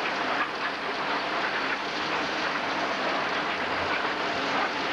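Concrete batch plant machinery running: the horizontal mixer and its belt conveyor make a steady, even clattering noise with no distinct tone.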